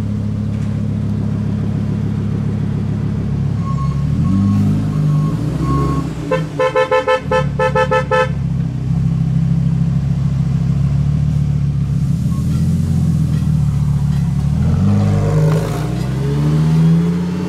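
Lamborghini Huracán STO's 5.2-litre V10 running, its pitch rising twice as it picks up revs. A car horn sounds in a quick series of about six short toots about a third of the way in.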